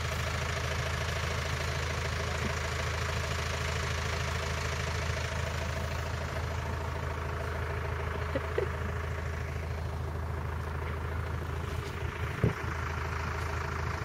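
Vehicle engine running steadily with an even low hum, and two brief knocks about eight and twelve seconds in.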